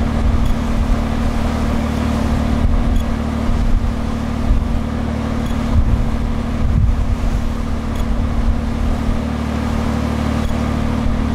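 Passenger ferry's engine running steadily under way, a constant low drone.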